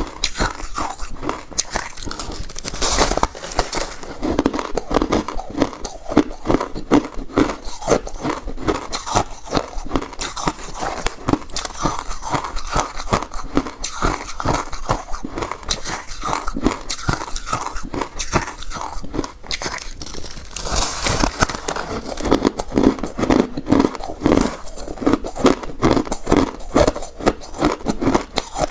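Refrozen crushed ice being bitten and chewed close to the microphone: a continuous run of crunchy, crackling chews, with louder bites about 3 seconds in and about 21 seconds in.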